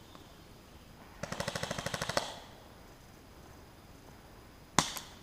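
Airsoft electric gun firing a full-auto burst of about a second, a rapid even rattle of roughly fifteen shots a second. Near the end come two single sharp shots in quick succession.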